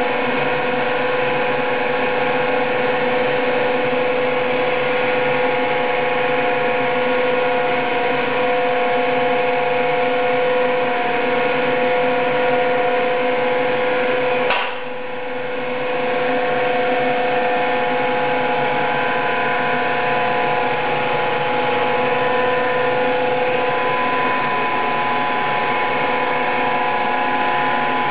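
Clarke Alto EZ-8 8-inch floor drum sander running steadily, its electric motor and drum giving a whine of several held pitches. About halfway through there is a click, and the sound dips and builds back up over a second or so.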